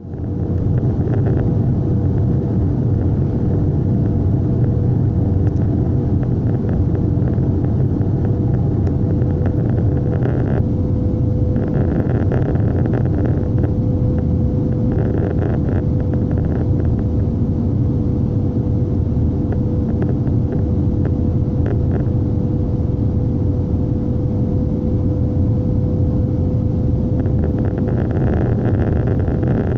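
Airliner cabin noise at a window seat on approach: a steady rumble of the jet engines and airflow, with a constant hum tone through it and a higher hiss that swells and fades a few times.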